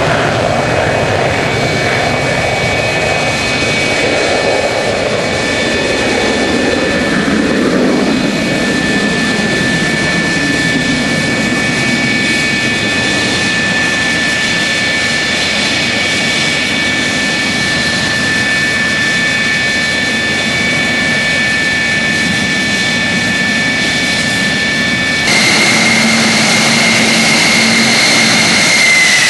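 F-104 Starfighter's J79 turbojet in afterburner on takeoff, then climbing away: a steady roar that lowers in pitch as the jet recedes, under a steady high whine. About 25 seconds in the sound cuts abruptly to a louder jet engine whine, which falls in pitch near the end.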